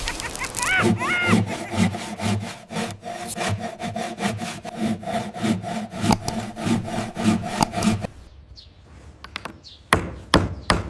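Rhythmic scraping strokes, about two a second, that stop about eight seconds in, followed by a few sharp knocks.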